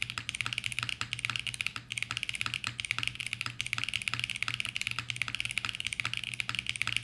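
Fast, continuous typing on a custom mechanical keyboard, the HIBI June: a silicone tray-mount case with an FR4 plate, lubed CK x Haimu Pastel Peach switches and CYL Sloth keycaps, keystrokes clicking several times a second without a break.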